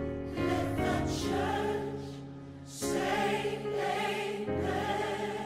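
Gospel choir singing long held chords that change every second or two.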